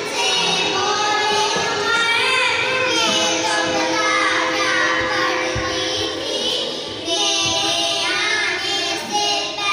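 Two young girls singing a devotional naat together into a microphone, with long held notes in the melody.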